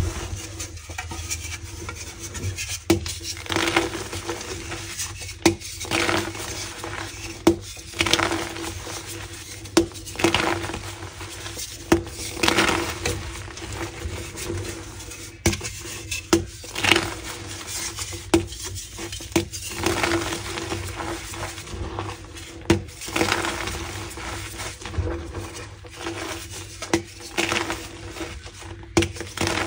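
Blocks of pink gym chalk being crushed and crumbled, a crisp crunch every second or two with soft crumbling between.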